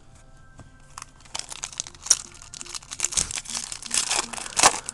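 Foil wrapper of a 2009 SP Authentic baseball card pack being torn open and crinkled by hand. A dense run of crackles starts about a second in, with the loudest tear near the end.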